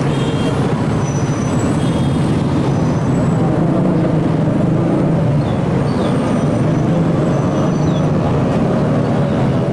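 Steady, loud city street traffic, with motor scooter engines passing close by.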